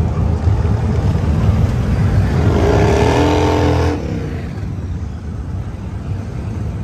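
Motorcycle engines rumbling at a rally, with one engine revving up about two and a half seconds in, holding briefly and cutting off about a second later.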